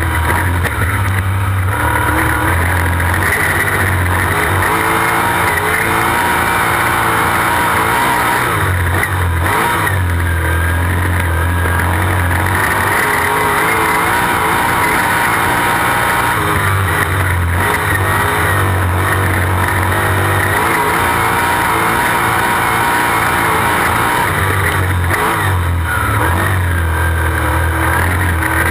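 On-board sound of a dirt-track sprint car's V8 engine running hard at speed. Its deep note swells and drops in a repeating cycle about every eight seconds as the driver gets on and off the throttle around the oval.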